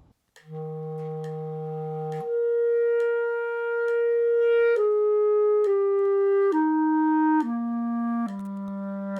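Clarinet playing slow, sustained single notes: a low held note, then a jump to a high note that steps down a descending line, one note at a time.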